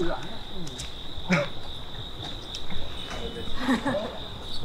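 Crickets trilling steadily, one unbroken high-pitched chirr, with a few brief snatches of low voice.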